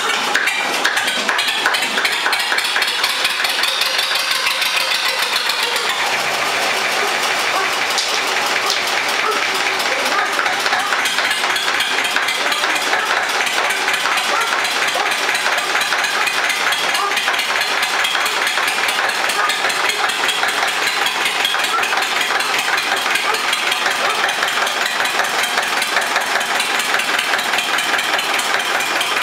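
Zetor 25K tractor's two-cylinder diesel engine idling steadily, freshly started after glow-plug preheating.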